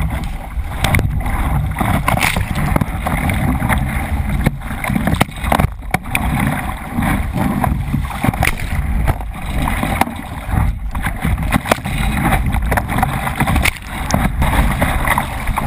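Surf and splashing water around a kayak being paddled out through breaking waves, heard from a camera mounted on its bow: continuous rushing water and wind on the microphone, broken by many sharp splashes as spray hits the camera.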